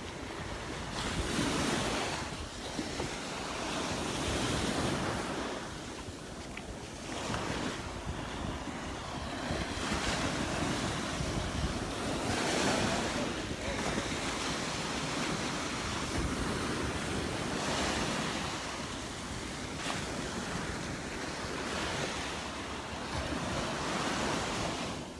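Surf breaking on a sandy beach, the wash swelling and easing every couple of seconds, with wind rumbling on the microphone.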